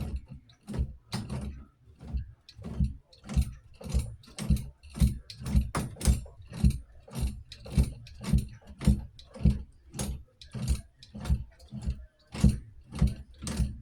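A hand tool working a metal plumbing fitting under a sink, with short mechanical clicking strokes repeating steadily about twice a second.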